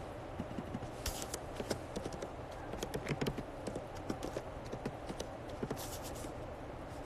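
Irregular light taps and clicks of fingers on a phone's touchscreen, close to the phone's own microphone, as a name is typed in, over a faint steady hiss.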